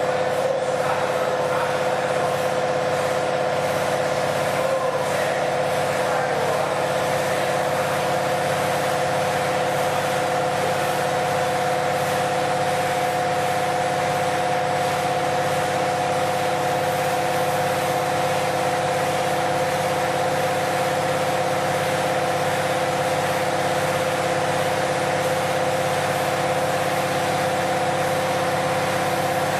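CNC router running steadily: an unchanging whine over a constant machine noise.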